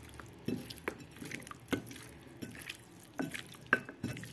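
A bare hand squeezing and kneading raw chicken pieces coated in wet spice pastes in a bowl: irregular wet squelches and sticky smacks, several a second.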